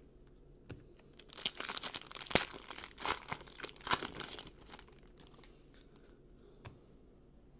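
Foil wrapper of a basketball trading card pack being torn open and crinkled by hand, crackling for about three seconds starting a second in, then fainter rustling.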